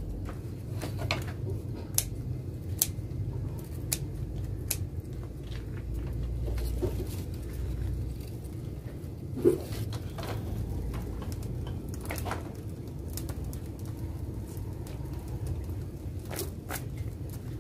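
Kitchen scissors snipping through a cooked duck: scattered sharp clicks of the blades, one louder about halfway through, over a low steady background rumble.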